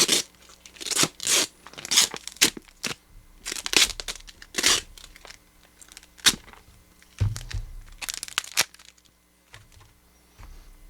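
Duct tape being peeled and ripped off a taped-up box in a series of short rips, with a couple of dull handling thumps; it goes quieter over the last couple of seconds.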